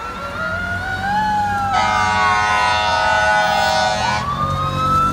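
Fire engine siren wailing in slow rising and falling sweeps as the truck approaches. A long horn blast of about two and a half seconds starts about two seconds in.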